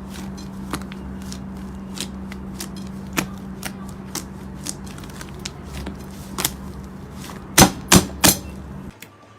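Slime being pressed and poked, giving irregular sharp sticky clicks and pops, with three loud pops in quick succession near the end. Under it runs a steady low hum that cuts off shortly before the end.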